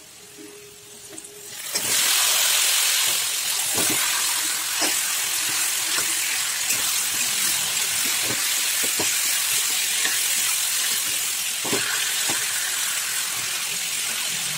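Marinated chicken pieces frying in hot oil: a loud, steady sizzle that starts suddenly about two seconds in, with a metal spatula knocking and scraping against the pan now and then.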